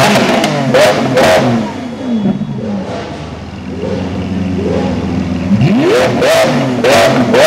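Lamborghini Aventador SV Roadster's V12 being revved while the car stands still: a string of quick throttle blips, a steady lower idle through the middle, then a hard rising rev about two-thirds of the way in followed by more quick blips.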